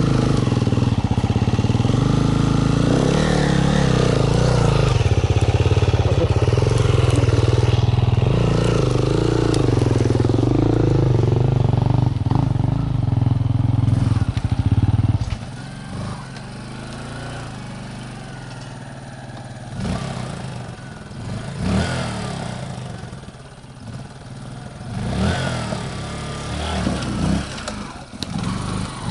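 Off-road motorcycle engine revving hard under load on a steep climb, its pitch rising and falling with the throttle. About halfway through the level drops abruptly, leaving a quieter engine blipping now and then with a few knocks.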